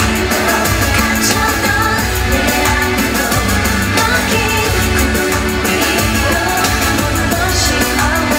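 A woman singing a pop song live into a handheld microphone over loud backing music through a concert sound system.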